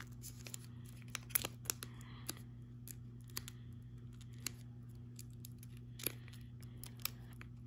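A baseball card pack's wrapper crinkling in the fingers as they pick and pull at a stubborn seal that will not tear open, in sparse faint crackles and small clicks over a steady low hum.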